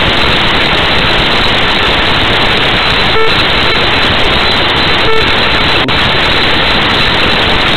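Loud steady hiss of static from a broken-up TV recording, with no speech. Two short beeps sound about two seconds apart near the middle.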